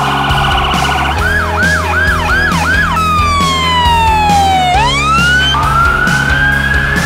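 Emergency-vehicle sirens edited one after another over background music: a fast warble, then about five quick rise-and-fall yelps, a long falling wail that swings back up, and a slow rising wail near the end.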